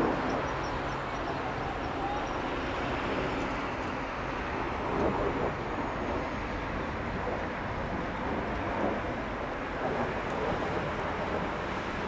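Steady, even jet roar from a distant Kawasaki T-4 aerobatic jet flying a smoke-trailing display pass.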